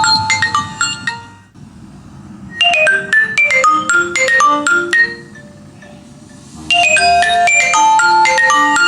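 Marimba-like phone ringtone played loudly through a Philips woofer speaker: a quick phrase of bright mallet notes that ends about a second in, then repeats twice with short pauses between.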